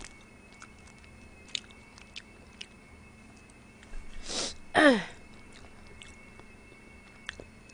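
Quiet eating sounds: faint mouth and utensil clicks, then about four seconds in a sharp breath followed by a short vocal sound falling in pitch.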